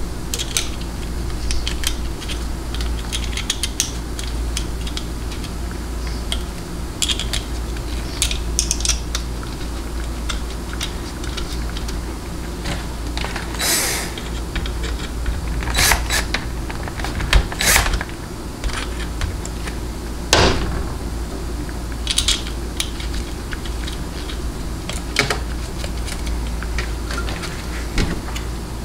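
Scattered light clicks and taps of small metal valve-body parts and bolts being handled and fitted by hand, with a few sharper clinks, over a steady low hum.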